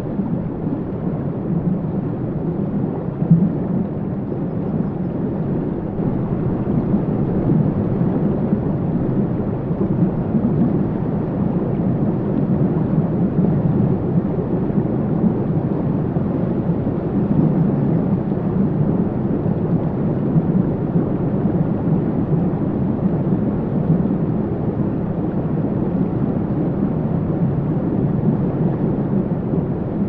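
Steady, muffled low rumble of a flowing stream heard from underwater, with no distinct splashes or pitched sounds.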